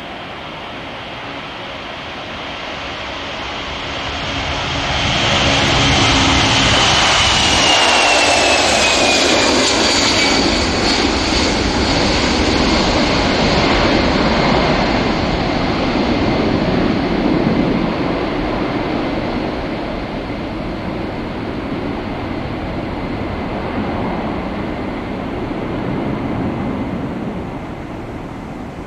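Boeing 747's four jet engines at takeoff power, swelling as the jet rolls past, with a high whine that drops in pitch as it goes by. A heavy roar then carries on, easing slowly as the aircraft climbs away.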